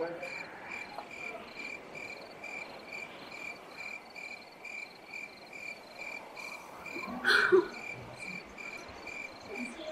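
A cricket chirping steadily in short even pulses, about two a second. About seven seconds in there is a brief, louder vocal sound.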